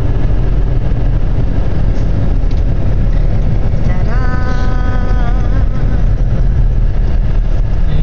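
Steady low road and engine rumble inside a moving car's cabin at highway speed. About four seconds in, a short held whine sounds for about a second and a half.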